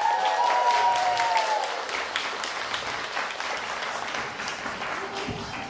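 Theatre audience applauding at the end of a dance number, slowly dying down. A long held vocal note rides over the clapping for the first second and a half, then trails off.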